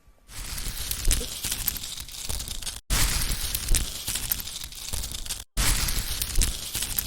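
Rain sound effect: a dense crackling patter of falling rain, played as a loop of about two and a half seconds that stops dead for an instant twice and restarts.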